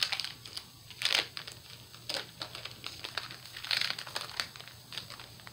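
Foil wrapper of a Japanese Pokémon card booster pack crinkling in the hands as it is torn open, in irregular bursts, loudest about a second in and again near four seconds in.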